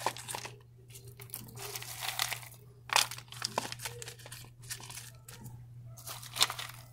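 Hand filling and pressing pine bark chips into a small plastic pot: irregular crunching, crackling rustles, with a sharper crunch about three seconds in and another near the end.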